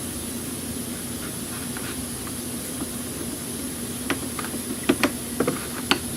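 Hand work on a car's cooling-system hoses and clips: a cluster of sharp clicks and knocks of parts and tools from about four seconds in, over a steady hum and hiss of shop machinery.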